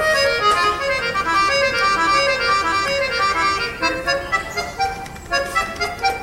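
Accordion playing a quick run of melody notes. In the last couple of seconds the notes become shorter and more detached.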